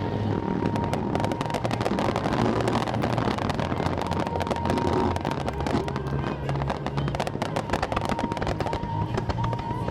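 Aerial fireworks bursting with rapid, dense crackling throughout, over music playing.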